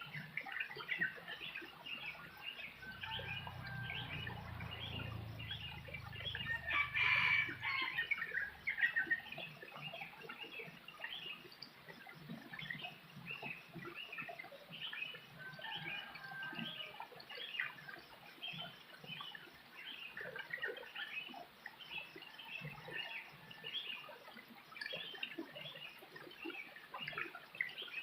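Rural farmyard ambience: chickens clucking, with many short chirping calls repeating throughout and a louder call, a rooster crowing, about seven seconds in.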